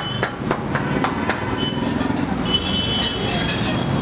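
Busy street-food stall noise: a steady rumble of traffic and kitchen activity, with repeated sharp metallic clicks and a couple of short high squeaks.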